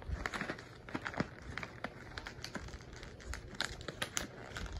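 A cat chewing dry puffed cat treats: irregular crisp crunches and clicks, with soft rustling underneath.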